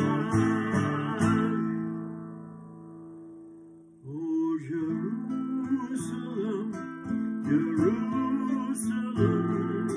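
Classical guitar strummed, then one chord left ringing and fading for a couple of seconds. Picked notes start again about four seconds in, and fuller strumming returns near the end.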